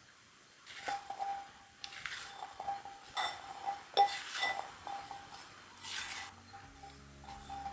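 Dishes and utensils clinking and clattering in a kitchen, a run of light knocks with one sharp clink about four seconds in.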